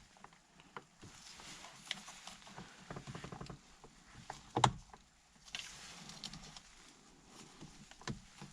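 Hands working a plastic tab and connector at a car's steering wheel hub: scattered light clicks, taps and rustling. A sharper knock comes about four and a half seconds in, and another near the end.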